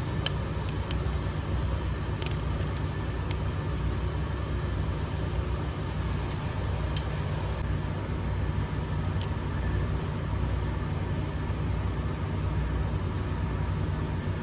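A steady low machine hum with a few faint sharp ticks.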